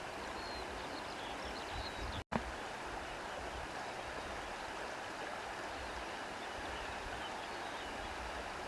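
Running water of a stream, a steady even rush, with faint high chirps above it. The sound drops out completely for an instant about two seconds in.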